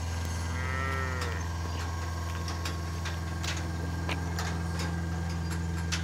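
A dairy cow moos once, a short call that rises and falls, about half a second in. A steady low hum and scattered light clicks run underneath.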